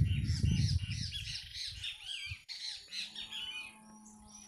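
A flock of birds calling, many short arching chirps overlapping densely before thinning out near the end. There is a low rumble through the first second or so.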